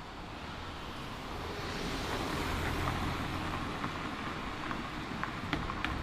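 Road traffic passing, a vehicle's noise swelling to a peak about halfway through and then easing off, with a few sharp clicks near the end.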